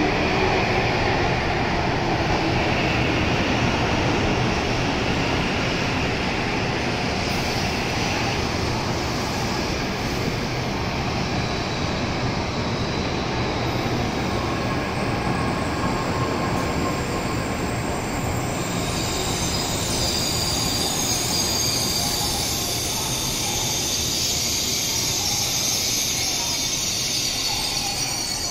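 N700A Shinkansen train rolling slowly past a platform with a steady rumble of wheels and running gear. About two-thirds of the way in, a thin, high wheel squeal joins it.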